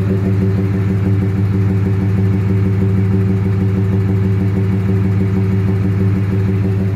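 Ford Cargo 2520 truck's diesel engine idling steadily through a modified loud exhaust, an even, unchanging idle note from the chrome-tipped tailpipe.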